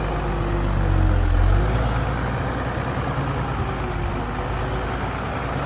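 Heavy diesel earth-moving machinery engine running, with a deeper, louder rumble for about the first second and a half that then settles to a steadier, lower-powered run.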